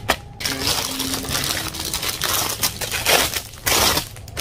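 Clear plastic wrapping crinkling and crackling as it is handled around a cardboard box, loudest in bursts about three seconds in and near the end.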